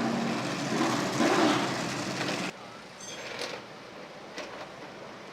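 A vehicle engine running steadily amid background noise, cutting off sharply about two and a half seconds in and leaving quieter background noise with a few light clicks.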